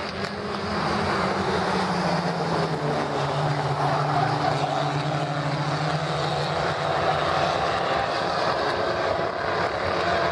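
A pack of pony stock race cars running around an asphalt oval, their four-cylinder engines making a steady, blended drone that shifts a little in pitch as the field passes.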